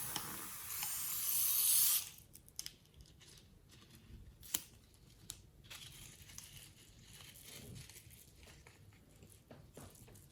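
Crinkling, tearing noise for about two seconds, then quieter scattered crackles and clicks, with one sharp click about four and a half seconds in, from hands working slime-making materials.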